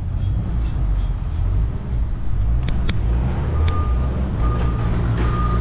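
Steady low vehicle rumble with a few sharp clicks, then a vehicle's backup alarm beeping three times in the last two seconds.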